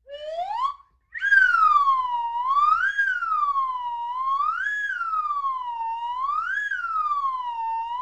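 Electronic siren-style wailing sound effect: a single tone winds up, breaks off briefly near one second in, then rises quickly and falls slowly about once every two seconds.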